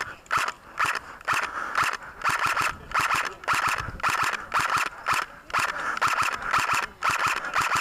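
Running footsteps at an even pace of about three strides a second, each stride with a scuff and a rattle of carried kit.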